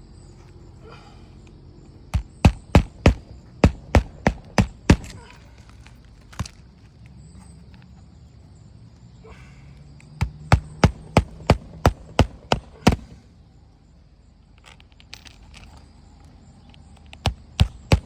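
Hammer driving roofing nails by hand into an asphalt shingle: runs of sharp strikes about three a second, one run early, a second after a pause, and a third starting near the end.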